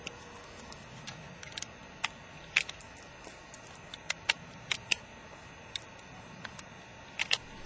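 Rifle and cartridges being handled while loading: about a dozen light, irregularly spaced clicks and ticks over a low background.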